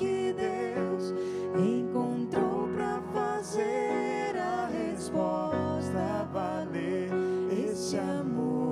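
A man's voice singing a Christian song, with many sliding vocal runs, over acoustic guitar accompaniment.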